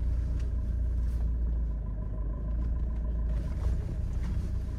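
Steady low rumble of a car driving slowly over a rough dirt road, heard from inside the cabin: engine and tyre noise.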